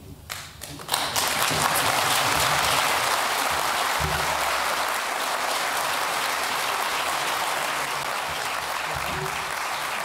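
An audience applauding. A few scattered claps, then full applause from about a second in that holds steady and eases slightly toward the end.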